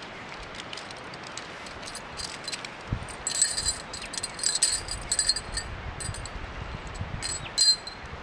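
Folded metal tent pole sections clinking and jangling together as they are handled and drawn out of their sack, with a scatter of bright, ringing clinks, the loudest near the end, over light rustling.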